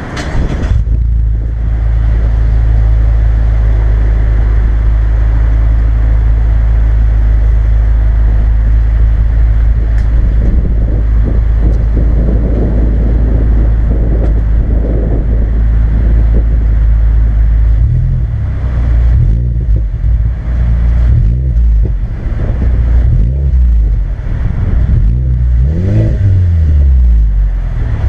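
2016 Mazda 3 GT four-cylinder engine breathing through twin Spintech Super Pro Street 9000 mufflers and a K&N air filter, idling steadily, then revved several times from about 18 s in, its pitch rising and falling with each rev.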